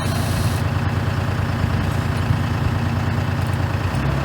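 Vehicle engine running steadily, a low, even sound with no change in pitch.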